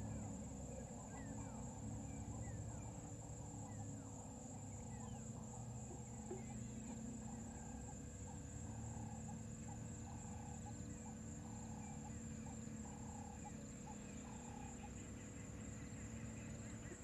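Faint bushveld ambience: birds calling, with several falling whistled notes in the first few seconds and a run of short repeated notes in the middle, over a steady high-pitched drone and a low hum.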